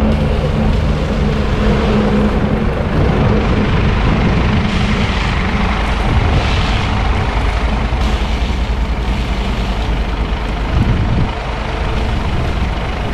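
A road vehicle driving at speed, with a steady rush of engine, tyre and wind noise.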